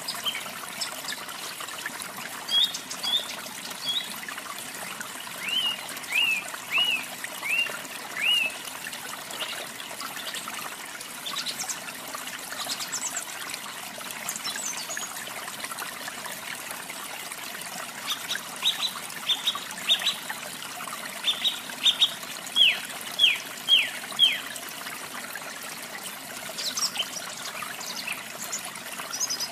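Steady trickling of running water, with a small songbird chirping over it in several runs of short, quick notes; the longest run comes about two-thirds of the way through.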